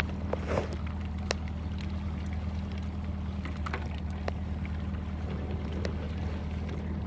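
Outboard motor idling with a steady low hum, with scattered light clicks over it.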